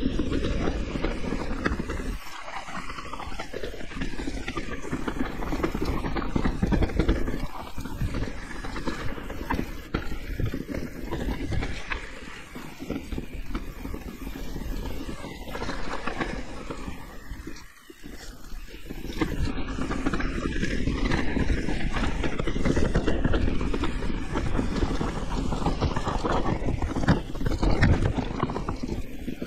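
Mountain bike rattling and its tyres rolling over a rough dirt trail on a descent, with wind rumbling on the microphone. The noise drops off briefly a few times, most clearly about 18 seconds in.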